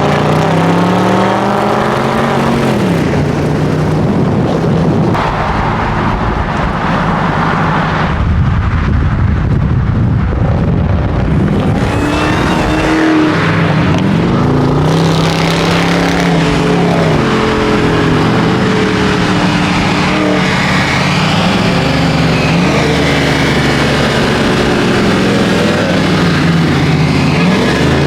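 Car engines revving again and again, the pitch rising and falling in long swells over steady engine and road noise.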